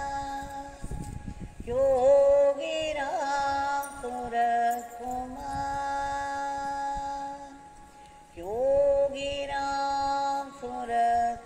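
Devotional chant sung to music in long held notes, each new note sliding up into place, with a short pause about eight seconds in.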